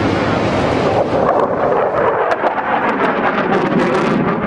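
HAL Tejas fighter's General Electric F404 turbofan roaring in flight, a loud, dense rumble with sharp crackles from about a second in.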